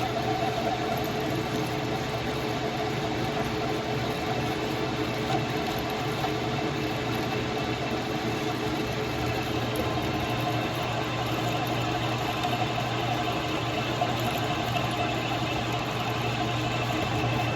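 Metal lathe running steadily while the cutting tool turns down a stainless steel shaft, giving an even machine hum with a few held tones.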